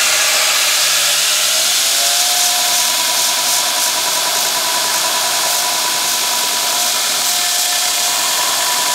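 Belt grinder running with a cast iron brake rotor held against its abrasive belt: a steady, loud grinding hiss over the motor's whine, which rises slightly about two seconds in. This is a spark test to tell cast iron from carbon steel.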